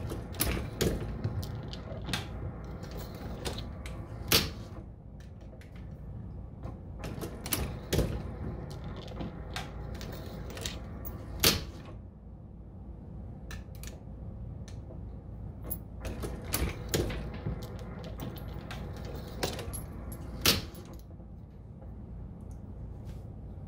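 Progressive reloading press decapping brass cases with an FW Arms decapping die: a run of mechanical clicks and clacks as the press cycles and spent primers are pushed out, with a few louder sharp snaps spread through it over a low steady hum.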